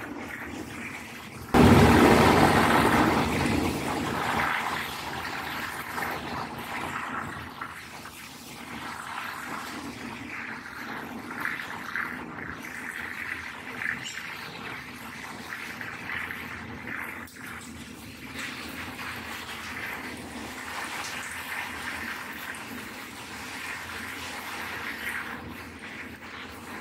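Passenger train running along the track, heard from inside the carriage at an open window: a steady rushing of wheels, rail and wind. It starts suddenly and loudest about a second and a half in, then settles to an even level.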